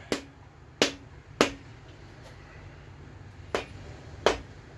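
Five sharp knocks, unevenly spaced, as a main bearing cap on a GM 4.3L V6 block is tapped to seat it over the crankshaft. The cap is not lining up straight, as if it slid out of place.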